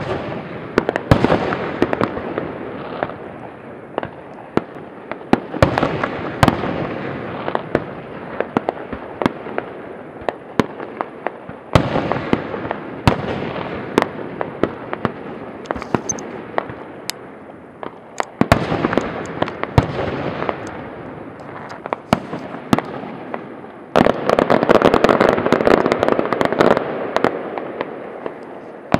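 Fireworks display: aerial shells bursting in an irregular series of sharp bangs over a continuous rumble and crackle. The bangs come thicker at times, and near the end a dense, loud volley of crackling bangs sets in.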